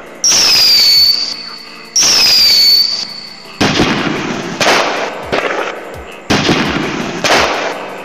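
Fireworks sound effect played by an LED fireworks light's sound circuit: two whistles that fall in pitch, then a run of bangs about a second apart, each trailing off in crackle.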